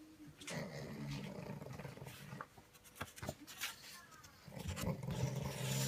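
Black pug snorting and grunting through its short nose in two rough, buzzy stretches, with two sharp clicks in between.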